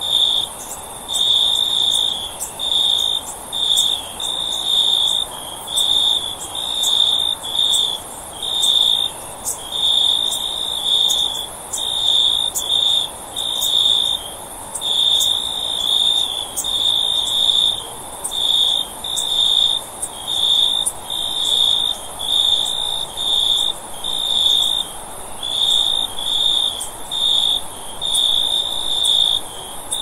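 Cricket chirping in short, evenly repeated pulses of a high, steady-pitched trill, a little faster than one a second, over a faint background hiss.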